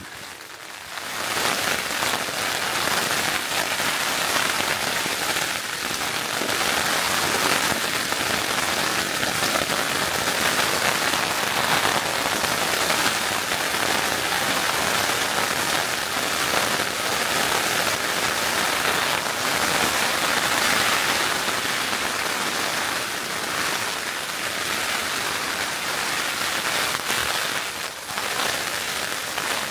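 Heavy rain battering a Fire Maple tent's flysheet, heard from inside the tent as a dense, steady drumming patter with small swells in intensity.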